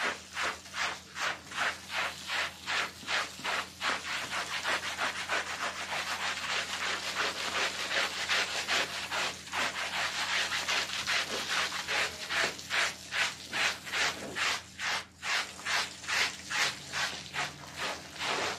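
Stiff hand brush scrubbing a wet, soapy rug in quick back-and-forth strokes, about two or three a second.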